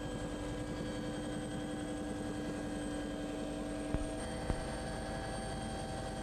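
Steady mechanical drone from a running engine, with a hum of several steady tones. A couple of sharp clicks come about four seconds in, where one of the lower tones drops out.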